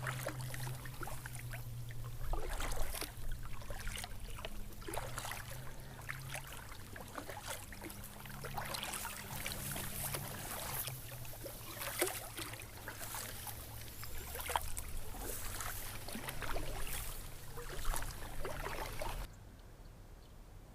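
Water splashing and trickling around a kayak, with irregular splashes every second or two, as from paddle strokes or drips off the paddle. A low hum runs under the first half, and the sound cuts off abruptly near the end.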